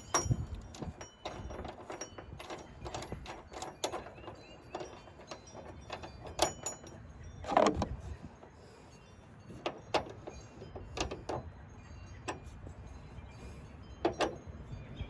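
Metal tools and hardware clinking and knocking, with irregular sharp clicks and rattles as a bolt and mounting plate are handled and fitted to a pickup tailgate.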